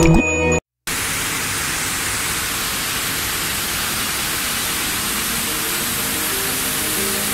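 Intro music cuts off within the first second, then after a brief silence a loud, steady hiss-like roar of machinery in a running thermal power plant boiler house. Faint music comes in beneath it near the end.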